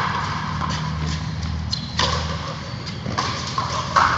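A frontenis rally: a few sharp smacks of the ball off rackets and the frontón wall, echoing in the court, the loudest near the end, over a steady low hum.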